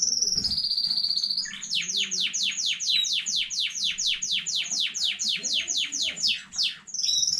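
Domestic canary singing. It opens with a held high whistle, then runs a long, fast trill of downward-sweeping notes, about six a second, and ends on another short whistle.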